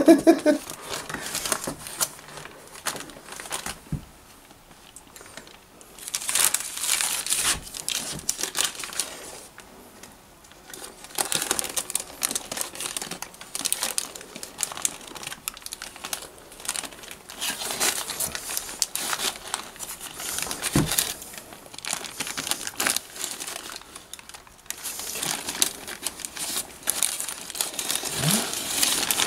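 Baking paper crinkling and rustling as hands fold and roll it tightly around a bacon-wrapped roll, in several bursts with short quieter pauses between them.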